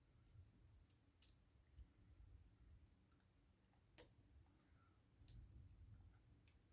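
Faint, sparse clicks and taps of small parts and tools being handled while an iPhone 6s is put back together, with a soft low rumble of handling. The sharpest click comes about four seconds in.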